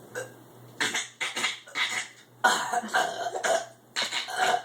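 A run of several short, rough, cough-like vocal bursts from a person.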